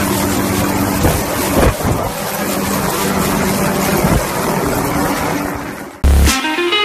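Small MD 500-type turbine helicopter lifting off close by: steady rotor and engine noise with a low hum and heavy rotor-wash rushing over the microphone, with a couple of louder gusts. About six seconds in it cuts off suddenly into loud electronic dance music.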